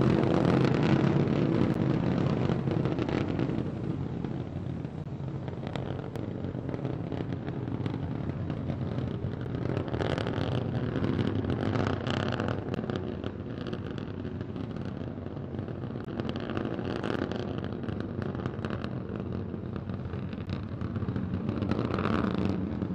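SpaceX Starship SN15's three Raptor rocket engines burning during ascent, a steady rushing noise that is loudest in the first few seconds.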